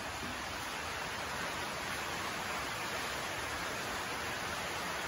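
A steady, even hiss.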